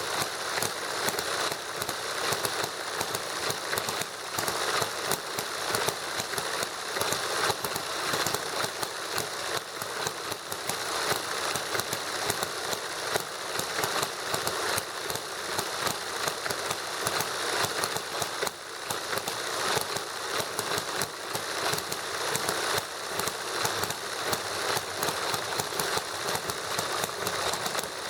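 Two small model engines running together, including a miniature hit-and-miss gasoline engine, making a rapid, steady clatter of firing strokes and mechanical clicking.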